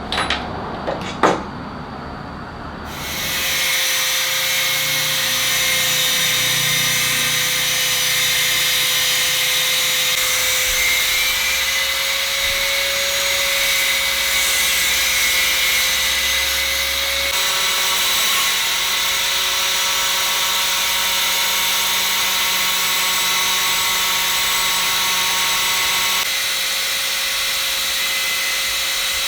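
A few sharp knocks, then a power tool starts about three seconds in and runs steadily with a constant whine.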